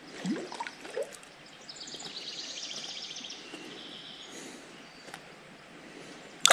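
A small bird's rapid, evenly repeated high trill lasting about two and a half seconds, over faint water sounds from a hand holding a trout in a stream. A sudden louder noise comes at the very end.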